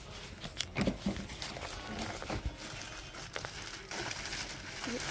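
Shop checkout sounds: footsteps on a hard floor, scattered clicks and knocks, and the rustle of a plastic carrier bag as shoes are packed.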